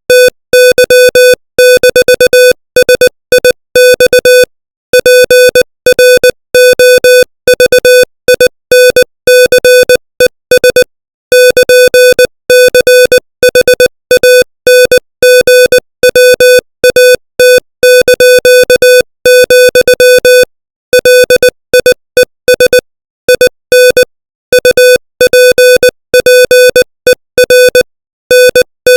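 Morse code sent at 20 words per minute: a single steady beep tone keyed on and off in short dots and longer dashes, with brief gaps between letters and longer pauses between words.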